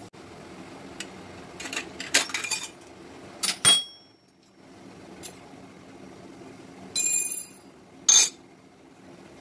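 Parts of a stainless-steel shavige press being handled and set down on a counter: a series of metal clinks and clatters, some ringing briefly.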